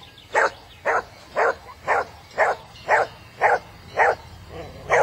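A dog barking in a steady, even rhythm, about two short barks a second.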